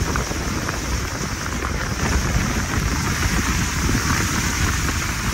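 Steady rain falling, heard as an even hiss, over a constant fluttering low rumble.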